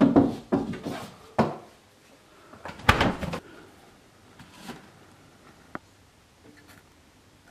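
Knocks and clatter of a pantry cupboard and the things on its shelves being handled. There is a burst of knocks in the first second and a half and a louder clatter about three seconds in, then a few faint clicks.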